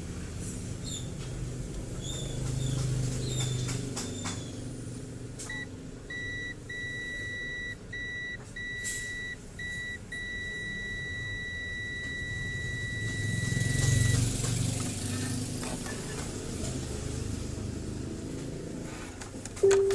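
Multimeter continuity beeper sounding, first in short broken beeps as the probes make and lose contact, then held steadily for about four seconds: the motherboard's DC-in and main supply line reads as short-circuited.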